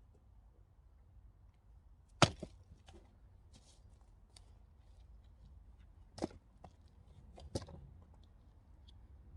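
Axe splitting firewood: three sharp chopping strikes a few seconds apart, the first the loudest, with a few lighter knocks of wood in between.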